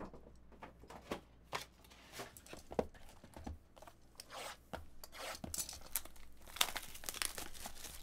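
Cellophane shrink-wrap on trading-card boxes being slit with a box cutter and torn off, crinkling, with scattered taps and clicks of cardboard boxes being handled. The crinkling gets busier about five seconds in.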